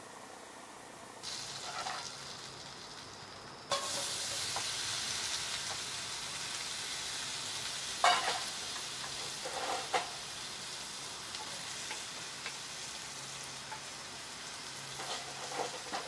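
Butter sizzling in a carbon-steel frying pan over a campfire. About four seconds in, diced apples go into the hot butter and a louder, steady sizzle follows, with a few knocks against the pan as they are stirred.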